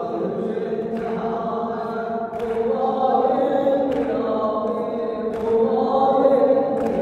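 Several voices chanting a Muharram mourning lament (nauha) together, holding long droning notes that shift slowly in pitch.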